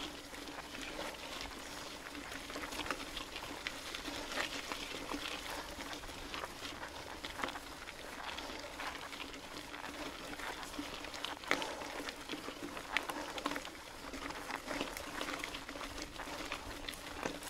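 Mountain bike ride on a forest road: steady rolling noise with many scattered small clicks and rattles, over a faint steady hum.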